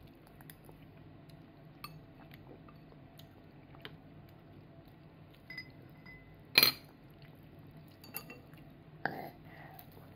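A metal spoon clinking and scraping against a ceramic soup cup as a toddler eats: scattered light clicks, with one sharp clink about two-thirds of the way through.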